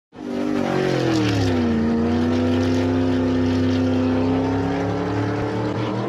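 Loud car engine revving: its pitch slides down between one and two seconds in and then holds steady, with a hissing, rasping layer on top.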